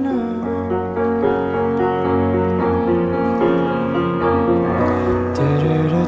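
Background music: an instrumental stretch of a song, with held piano or keyboard chords and no singing.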